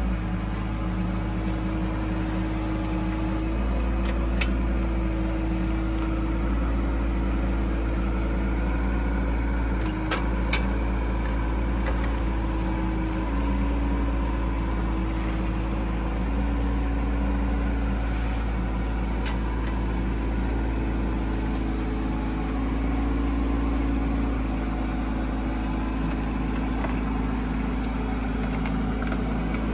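Bobcat E10 mini excavator's small diesel engine running steadily, its note stepping up and down every few seconds as the hydraulics work the boom and tracks. A few short sharp clanks of metal come through it.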